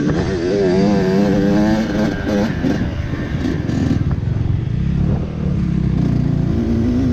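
Dirt bike engine revving up and down on a trail ride. Its pitch wavers quickly in the first couple of seconds, then runs rougher and steadier toward the end.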